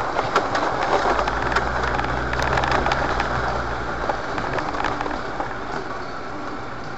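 Off-road vehicle heard from inside its cabin while crawling over a rough, rutted track: a steady engine and tyre rumble with scattered knocks and rattles, the low rumble easing after about four seconds.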